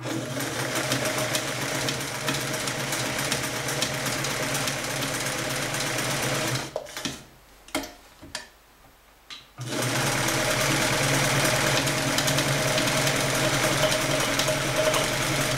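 Freshly overhauled vintage Sears Kenmore sewing machine running steadily, sewing a multi-zigzag stitch through denim. It stops for about three seconds near the middle, with a few light clicks, then runs again at the same steady speed.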